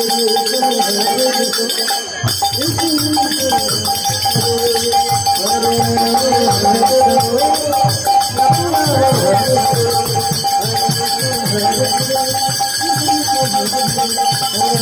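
Bengali devotional kirtan music: a steady held tone with jingling percussion, joined about two seconds in by a drum playing a fast, continuous run of strokes that bend down in pitch.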